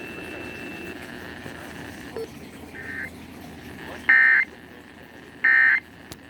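Emergency Alert System end-of-message data bursts: three short, buzzy digital bleats about a second and a half apart, the first faint and the last two loud, over radio hiss. They mark the end of the test alert.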